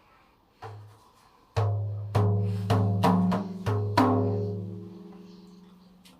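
Dikir barat rebana ibu, the large frame drum with a pauh-wood body and no rotan sedak, struck by hand. There is a light tap, then about seven deep, resonant strokes in a loose rhythm, and the last one rings out slowly.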